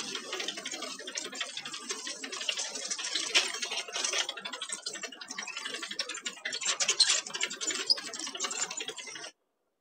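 Dense gunfire: rapid automatic fire mixed with louder single shots, cutting off suddenly near the end.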